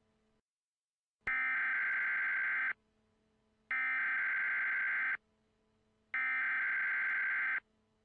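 Emergency Alert System SAME header: three identical bursts of buzzy digital data tones, each about a second and a half long, with a pause of about a second between them. These are the coded header that opens an EAS alert, here a tornado watch.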